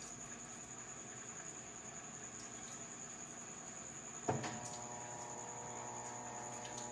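GE King Capacity 15.1 kg top-load washing machine paused between stages with a faint steady hum and a thin high whine. About four seconds in, a sharp click is followed by water starting to run into the tub through the inlet valve, a steady rush with a faint whistle, as the machine begins filling.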